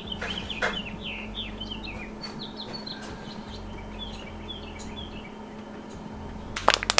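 Birds chirping in the background, a quick series of short high chirps, over a low steady hum. Near the end a burst of loud sharp crackling clicks begins.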